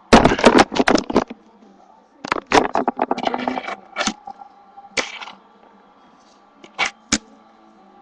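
Handling noise: rapid clusters of sharp clicks and knocks as the handheld webcam and small fingerboard-park pieces are moved about on a desk, then a few single knocks, the last two close together near the end. A faint steady hum lies underneath.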